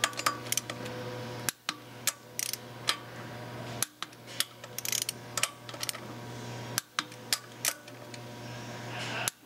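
Torque wrench tightening the bolts of a solid flywheel: scattered sharp metallic clicks from the wrench, over a steady low hum.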